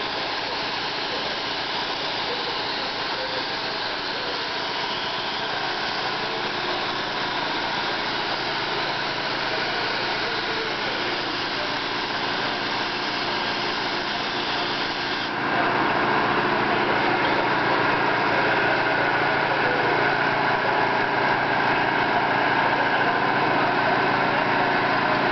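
Compressed-air paint spray gun hissing steadily as it sprays paint, over a steady machine hum. About two-thirds of the way through the sound steps up suddenly and gets louder.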